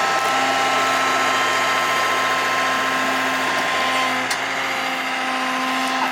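Excavator's diesel engine and hydraulics running steadily, with a steady high whine over the engine noise, as the machine works.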